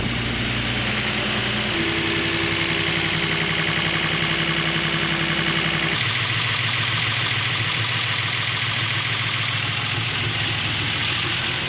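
Datsun 280ZX's 2.8-litre inline-six idling steadily and cold, running shortly after its first start on a freshly rebuilt cylinder head. The tone changes abruptly about two seconds in and again about six seconds in.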